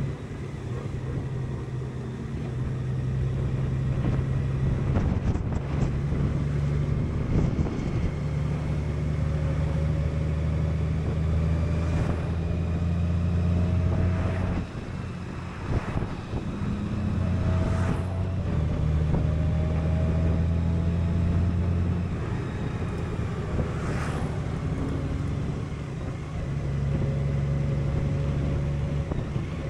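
Honda Gold Wing's flat-six engine running at road speed, its note stepping up and down several times with the throttle, over a steady rush of wind and road noise.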